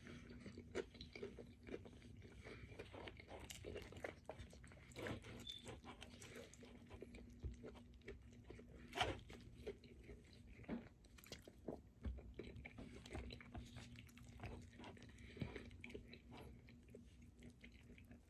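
Faint close-up chewing and wet mouth clicks from a person eating a smash burger wrapped in a tortilla, with small handling noises as the food is torn apart by hand. A faint steady hum runs underneath.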